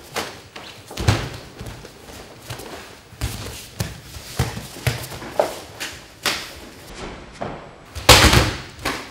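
Punches and kicks landing in a quick, uneven series of sharp slaps and thuds during gloved karate sparring, then a heavy thud about eight seconds in as a body is thrown onto the dojo mat, the loudest hit.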